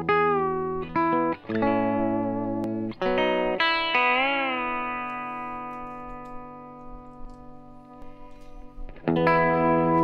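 Connexion Telecaster electric guitar played through a Source Audio Collider Delay+Reverb pedal and Durand MG100 II amp. A few short chords, one with a wavering bend, then a held chord rings out and fades slowly with reverb for about five seconds before playing picks up again near the end.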